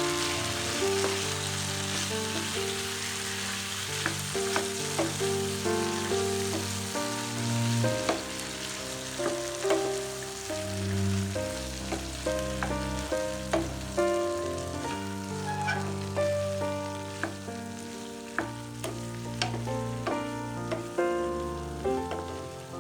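Food sizzling in a frying pan, with repeated short clicks of a utensil against the pan as it is stirred, over background music.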